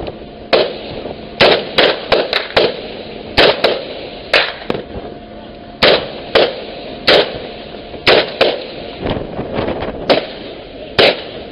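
Rifles firing single shots in an irregular volley, about twenty sharp cracks, sometimes two or three in quick succession, from more than one gun.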